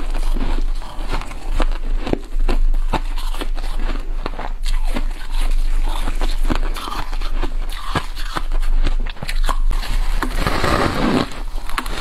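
Close-miked biting and chewing of soft freezer frost: a fast, irregular run of crisp crunches, with a denser patch of crunching near the end.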